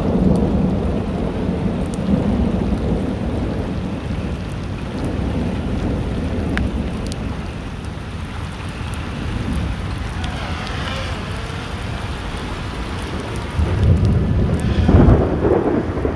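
Steady rain with low rolling thunder rumbling throughout; the thunder swells to its loudest near the end.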